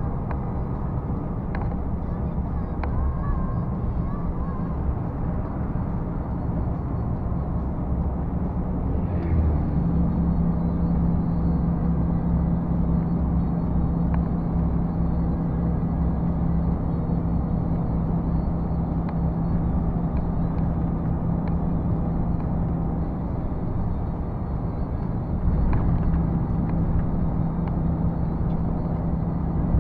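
Volvo truck's diesel engine and road noise heard from inside the cab while cruising on the highway: a continuous low drone. About ten seconds in, a steady engine hum comes up over the rumble; it drops away briefly and returns, slightly louder, near the end.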